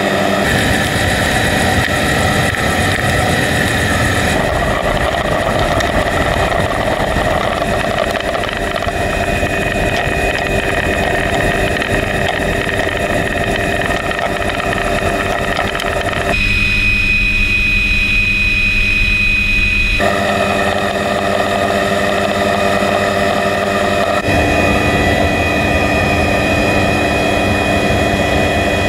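Helicopter turbine and rotor noise heard from inside the cabin with the doors open: a steady loud drone with fixed whining tones. Its character changes abruptly a few times.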